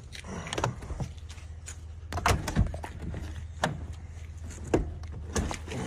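Clicks and knocks from the door handle and latch of a locked pickup truck as the handle is pulled again and again, over a low steady hum.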